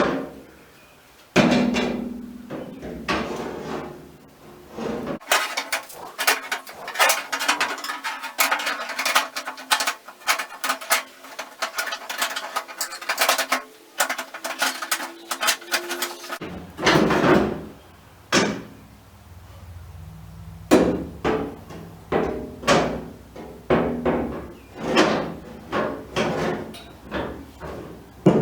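Delta Unisaw's cast-iron arbor yoke clanking and knocking against the saw cabinet and trunnion bracket as it is worked in through the motor opening and twisted into place. The knocks come thick and fast through the middle, then at spaced intervals near the end.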